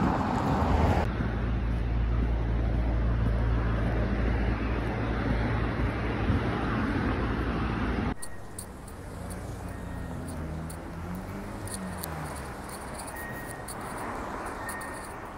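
City street traffic noise: a steady low rumble of passing and idling vehicles, which drops abruptly about eight seconds in to quieter street ambience.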